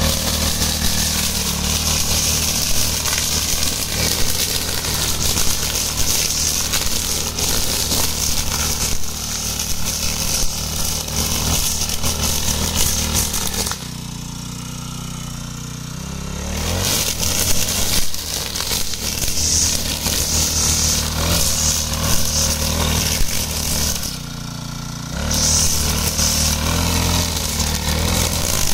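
Small four-stroke engine of a wheeled push-type brush cutter running at high speed while its cutting head slashes through grass and weeds. The sound drops for a couple of seconds about halfway through, drops again briefly later on, and picks back up each time.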